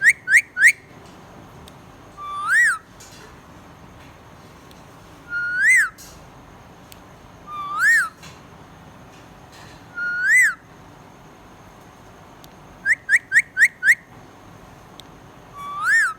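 Clear, pure whistles. It opens with a quick run of four short whistles, then gives single slurred whistles that rise and fall, one every two to three seconds. A run of five quick whistles comes about thirteen seconds in, and one more slurred whistle near the end.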